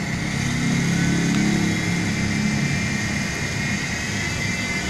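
Toy remote-control helicopter's electric motor and rotor blades buzzing as it flies, a steady hum with a thin high whine that grows louder in the first second.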